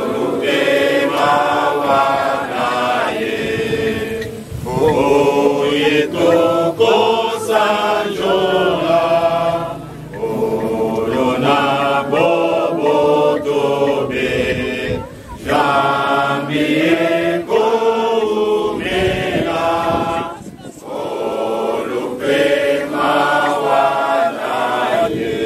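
A large congregation of men and women singing a hymn together, with short breaks between lines about every five seconds.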